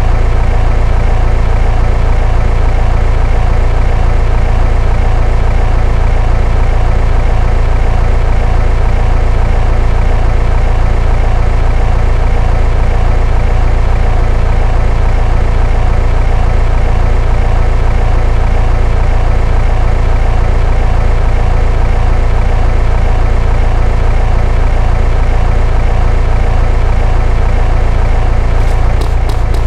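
Car sound system playing very loud, distorted bass, a steady low rumble that covers everything else.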